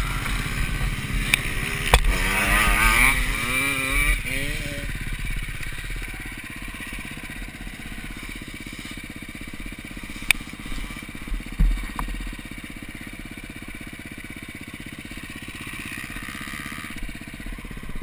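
Husqvarna 250 TC motocross bike's engine after a crash, with a few hard knocks in the first two seconds. The engine revs up and down unevenly for a couple of seconds, then settles into a steady, quieter run with a couple of sharp clicks near the middle.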